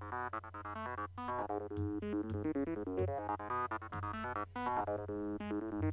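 Psytrance-style arpeggio from an Xfer Serum software synth patch: a sawtooth oscillator and an acid wavetable through a resonant band-pass filter. It plays a fast run of short, bright notes over a steady low tone.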